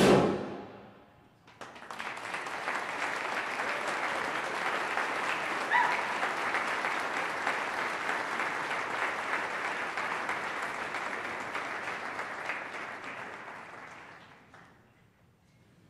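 A concert band's final chord cuts off and rings away in the hall, then audience applause builds and runs for about thirteen seconds before fading out near the end.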